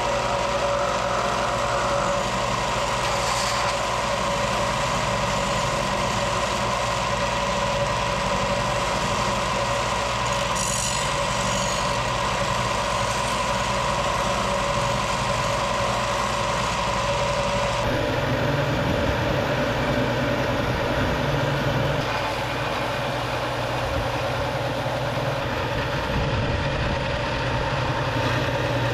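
Electric belt sander running steadily while a steel axe head, cut from a table saw blade, is pressed against the moving belt. About eighteen seconds in the sound shifts to a lower, rougher running tone.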